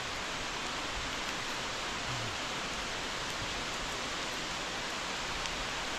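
Steady rush of a waterfall, an even hiss of falling water with no breaks.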